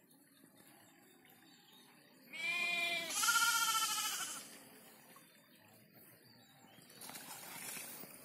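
A goat bleating twice in quick succession, about two seconds in: two wavering cries, the second louder.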